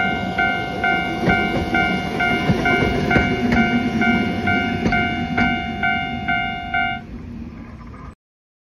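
Railway level-crossing warning bell ringing evenly at about two to three dings a second, over the rumble and wheel clicks of a tram running past. The bell stops about seven seconds in, and the sound cuts off a second later.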